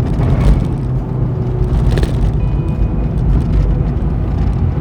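2006 Honda S2000's 2.2 L F22C1 four-cylinder engine running steadily under way, with road and tyre rumble, and a short click about two seconds in.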